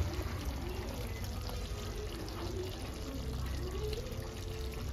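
A ladle lifting simmering chicken gravy and pouring it back into the pan, with steady liquid pouring and splashing.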